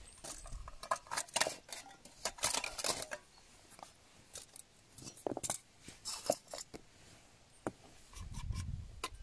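Trangia titanium cook set being taken apart by hand: rustling of a packet and light metallic clinks and scrapes as the pots, windshield and lid are lifted out and set down on a wooden table. The clatter is busiest in the first three seconds, with a few separate clinks later and a dull bump near the end.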